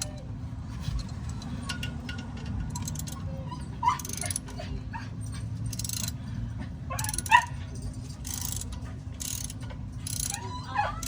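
A dog whimpering and yelping in short rising cries, three times, the loudest about seven seconds in. Between the cries come brief bursts of clicking tool noise from the brake job, over a steady low hum.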